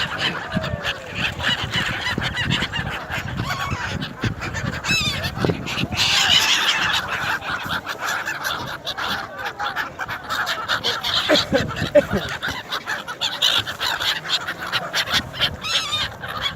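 A large flock of migratory birds calling all at once, a dense, continuous clamour of many overlapping short calls.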